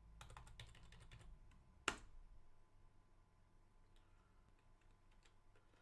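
Faint computer keyboard typing: a quick run of keystrokes, then one harder key press just before two seconds in, the loudest sound, which is the Enter key sending a terminal command, followed by a few scattered light taps.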